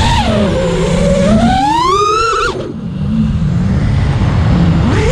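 Brushless motors of an FPV quadcopter (Flywoo NIN 2207 2450Kv on 5-inch props) whining with the throttle. The pitch climbs and dips, drops away sharply about halfway through as the throttle is cut, and climbs again near the end, over a low rumble.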